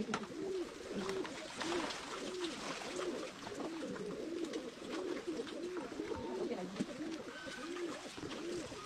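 A sow grunting softly and rhythmically, about two short grunts a second.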